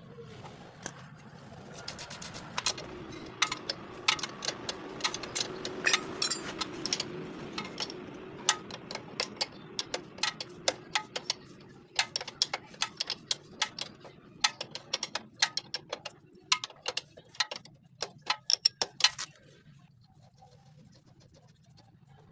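Irregular sharp metallic clicks and clinks, some in quick runs, over a low hum between about two and eight seconds in. They stop about nineteen seconds in.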